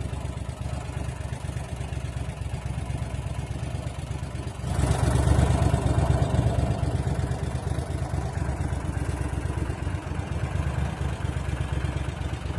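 Tour boat's motor running steadily at low speed. It gets louder about five seconds in, then settles.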